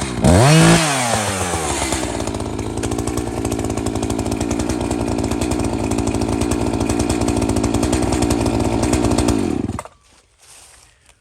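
Bauer battery-powered chainsaw with a freshly sharpened chain: the electric motor revs up and down on the trigger, then runs steadily under load as it cuts through a small downed log for about eight seconds, stopping suddenly near the end.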